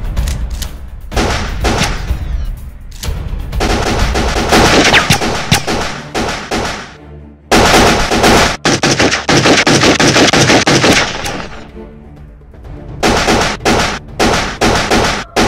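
Gunfire in long rapid runs of shot after shot. It falls away briefly about seven seconds in and again around twelve seconds, then comes back as separate shots in quick succession near the end.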